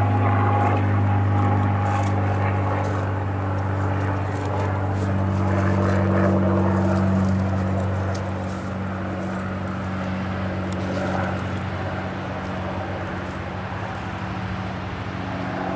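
Single-engine Cessna 182S propeller plane flying overhead: a steady, low engine-and-propeller drone that fades gradually over the second half.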